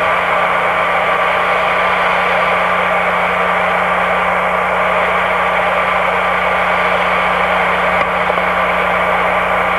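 Cockpit voice recorder background noise from a Boeing 747 flight deck: a steady hiss with a constant low hum.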